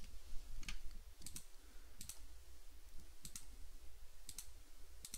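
Computer mouse button clicks, several sharp single clicks and quick pairs about a second apart, made while picking mesh faces in a 3D editing program.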